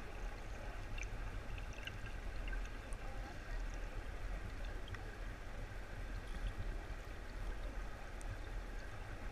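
Creek water flowing, heard through a camera's underwater housing: a steady muffled rumble with scattered faint ticks.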